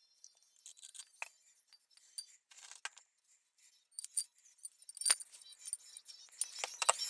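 Light metallic clinks and taps as a steel washer is fitted onto the end of a 1938 Reed vise's main screw and the parts are handled on a steel diamond-plate mat, with one sharper clink about five seconds in and a quick cluster of clinks near the end.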